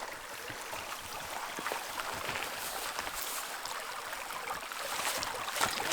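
Stream water running steadily, with a few faint clicks of movement.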